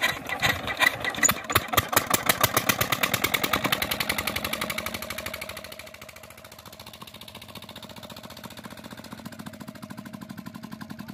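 Petter diesel engine just started by hand, firing in loud regular thuds that quicken as it picks up speed. About five seconds in it settles to a quieter, steady running beat.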